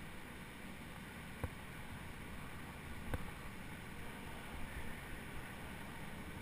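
Steady low noise, with two short sharp clicks about a second and a half and three seconds in.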